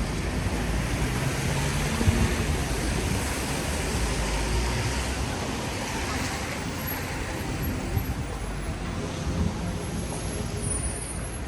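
Street traffic on a wet road: vehicles passing with tyre hiss over a steady low engine rumble, swelling as one goes by a couple of seconds in.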